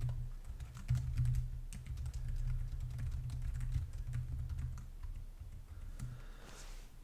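Typing on a computer keyboard: a quick run of key clicks that stops about six seconds in.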